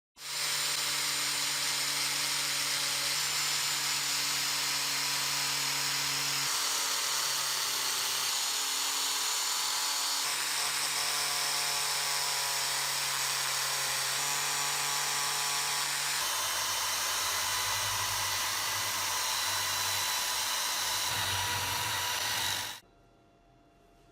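Electric power tool running steadily, a dense hiss with a hum whose pitch shifts a few times, then cutting off suddenly near the end.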